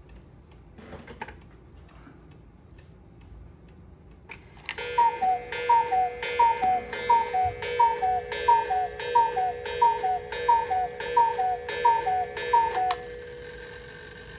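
Cuckoo clock striking noon: after a few seconds of quiet clicking, a long regular run of two-note falling cuckoo calls, each with a click, over a steady grinding hum from the clock's movement. The calls stop shortly before the end.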